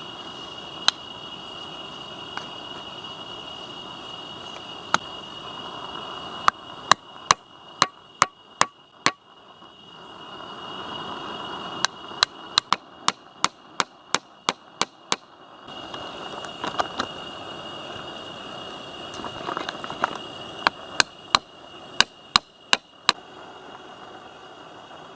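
Three bursts of rapid sharp knocks, about three or four a second, like a hammer striking, with a few single knocks before them. Under them runs a steady high-pitched insect drone.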